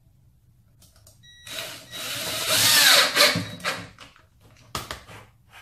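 Cordless drill driving a screw through a plastic ball entry cup into a foosball table's side panel. It runs for about two seconds starting about a second and a half in, its pitch bending as the screw tightens, then gives a short second burst near the end.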